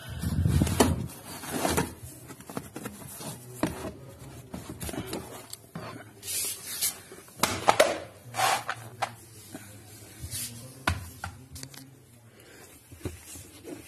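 Rubber car floor mat being pulled out of the driver's footwell, with irregular rubbing, scraping and knocks, loudest near the start and again about eight seconds in.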